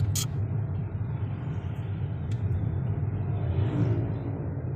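Inside a moving car's cabin: a steady low engine-and-road rumble from a car whose engine has just been fully overhauled, out on a test drive. There is a sharp click just after the start, and a brief swell of rushing noise about three and a half seconds in.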